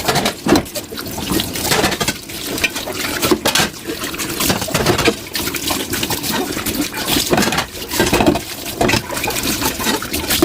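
Tap water running into a sink while dishes are washed by hand, with frequent clinks and knocks of dishes against each other and the sink.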